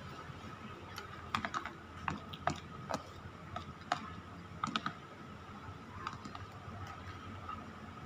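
Metal spoon and fork clinking and scraping on a plate: a scattered run of small sharp clicks between about one and five seconds in, over a faint steady hum.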